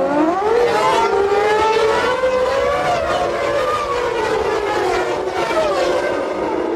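Several 1995 Formula One engines revving at once, their pitches rising and falling over one another in a high, continuous whine.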